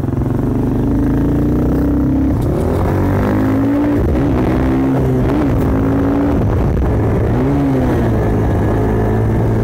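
Yamaha dirt bike engine running under way. It holds steady revs for about two seconds, then the revs rise and fall several times.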